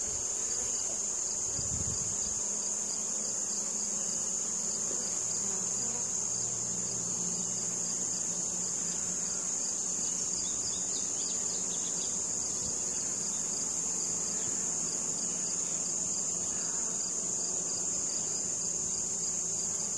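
Honeybees buzzing around an open hive, a colony stirred up by smoke, over a steady high-pitched insect trill.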